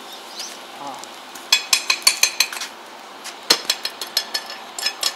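Sharp metallic taps and clinks of a metal tool striking steel flat bar, in two quick runs: about eight rapid strikes from about a second and a half in, then another string of taps in the second half.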